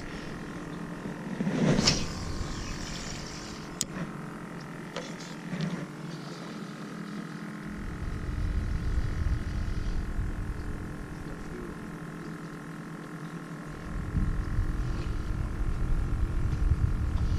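Wind buffeting the microphone in gusts, over a steady distant engine hum, with a sharp click about two seconds in.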